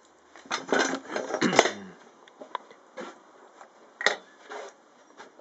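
Steel log clamp clanking and scraping against the angle-iron track of a homebuilt bandsaw mill as it is set in place and slid across. A cluster of metal knocks and scrapes comes in the first two seconds, then a few single clinks.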